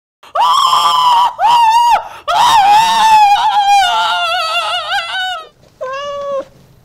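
A high-pitched voice screaming in four cries: two short screams, a long wavering wail, then a last short scream near the end.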